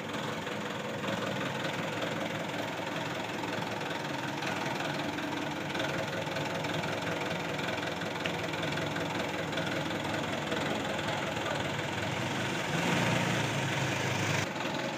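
A Mitsubishi light truck's diesel engine idling steadily, with a louder low hum for a second or two near the end.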